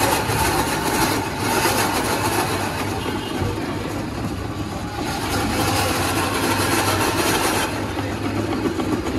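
Electric ice-shaving machine running, its spinning blade grinding a block of ice into shaved ice: a steady motor hum under a coarse scraping hiss that swells and eases now and then.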